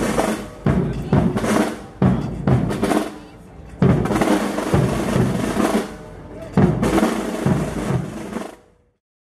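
Processional band percussion: snare drum rolls and heavy bass drum strikes in an uneven rhythm, fading out near the end.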